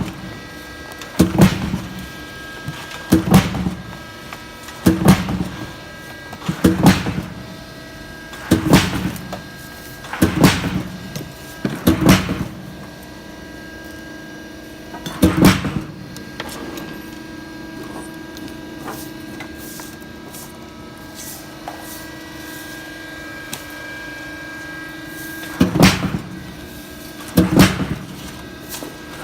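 Semi-automatic saw-blade attaching machine cycling: a sharp mechanical clunk about every two seconds over a steady machine hum. The clunks stop for about ten seconds, leaving only the hum, and start again near the end.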